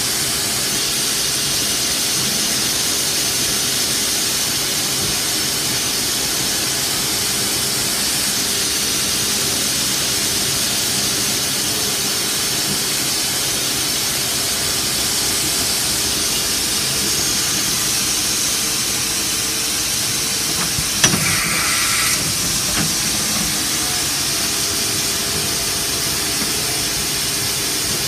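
CNC milling machine cutting a linen phenolic cylinder held in a rotary indexer: a steady hiss over a low hum. About three-quarters of the way through there is a sharp click and a brief squeal lasting about a second.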